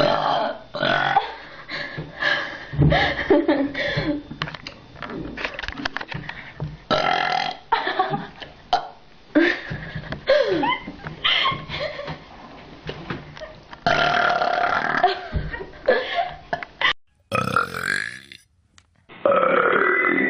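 Many short belches in quick succession, some with a falling pitch. The sound quality changes abruptly between them where separate clips are cut together.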